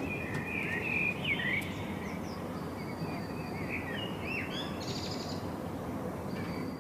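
Several songbirds chirping and calling, many short sweeping notes, over a steady low rumble of outdoor background noise.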